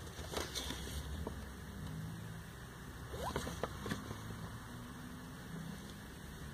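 Faint clicks and rustles of packaged items being handled, a few short bursts about half a second in and again around three to four seconds in, over a low steady hum.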